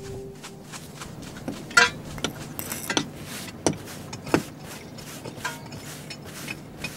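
Metal trowels scraping and clinking on dry stone and packed soil: a string of short taps and scrapes about a second apart, one longer scrape near two seconds in.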